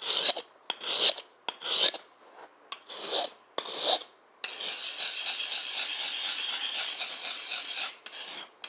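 Knife blade being sharpened on a sharpening stone: about five short separate strokes in the first four seconds, then about four seconds of steady scraping.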